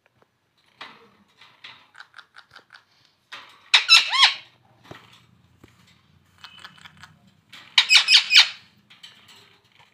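Pet parrot calling: a row of soft short chirps, then two bursts of quick shrill squawks, about four seconds in and again about eight seconds in.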